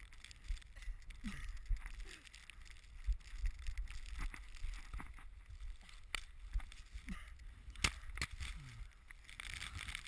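Blizzard wind rumbling on the microphone, with scattered knocks and rustles from the handheld camera being moved about.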